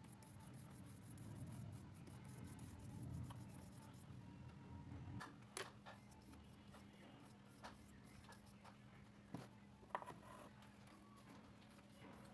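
Faint rubbing of a paintbrush dragged and dabbed across paper, with a few light taps in the second half and a steady low hum underneath.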